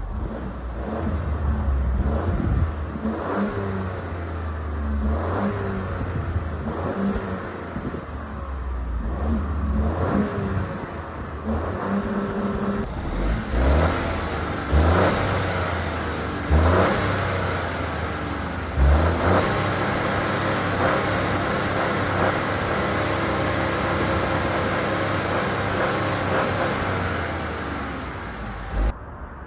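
Citroën C4 X 1.2 PureTech three-cylinder turbo petrol engine accelerating hard, its pitch rising again and again as it pulls through the gears. It then settles into a steady drone for roughly the last third.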